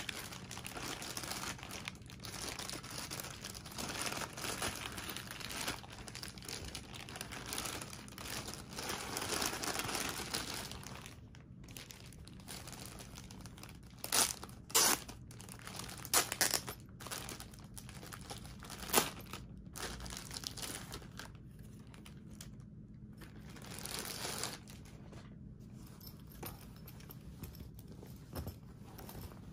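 Plastic packaging crinkling and rustling as a poly mailer and a clear plastic sleeve are handled and opened, with several sharp, loud crackles in the middle. Softer rustling later as the folded fabric duffle bag is unfolded.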